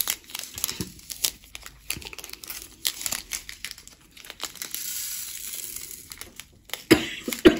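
A small plastic bag of resin diamond-painting drills crinkling as it is handled, with a steadier rattling hiss in the middle as drills are tipped out into a plastic drill tray. Two short loud bursts near the end.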